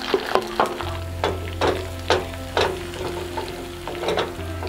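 Dried red chillies, shallots and coconut slices sizzling in hot coconut oil in a small pan, with a spoon scraping the pan about twice a second as it is stirred.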